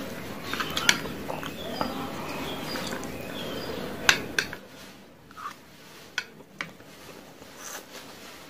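Metal chopsticks clicking and scraping against a stainless steel tray as noodles are stirred and picked up, with one sharp clink about four seconds in and lighter clicks after, over chewing.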